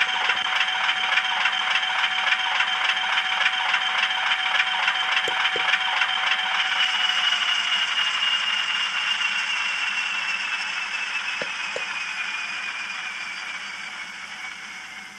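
Hornby Class 50 model locomotive running, its DCC sound decoder playing a diesel engine sound through the model's small speaker over the rattle of the wheels on the track. From about halfway the engine note drops, and the sound fades away near the end.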